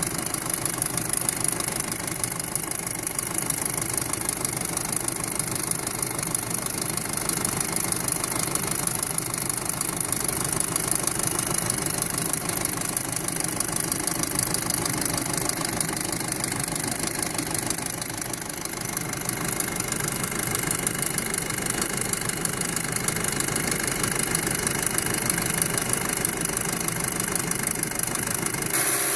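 2007 Volkswagen Passat 2.0T turbocharged four-cylinder engine idling steadily with a loud noise: a fast, even ticking over the running.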